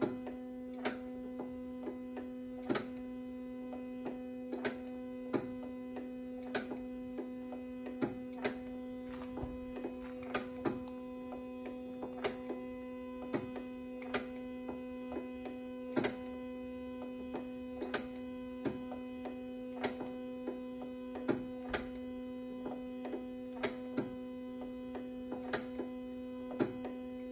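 Roland BN-20 printer running its ink-fill pump cycle, pumping ink through the supply lines into a newly installed printhead's dampers. It gives a steady mechanical hum with sharp clicks roughly once a second at uneven intervals.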